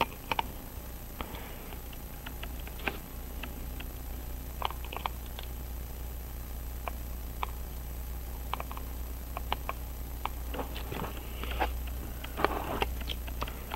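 Small irregular clicks and taps of steel tweezers against a pocket watch's dial and second hand as the hand is fitted, with a short burst of scratchy handling of the watch and holder near the end. A steady low hum underneath.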